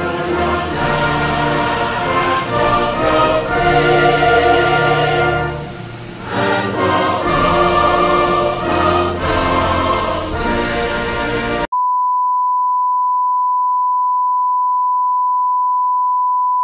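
Orchestral music with a choir, made up of many sustained chords, cuts off abruptly about twelve seconds in. A single steady test tone takes over, the tone that goes with colour bars when a TV station signs off the air.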